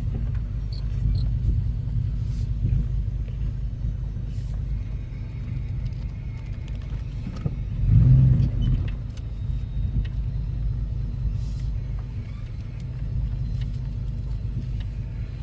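Low, steady rumble of an OBS Chevrolet pickup truck running, swelling briefly about eight seconds in.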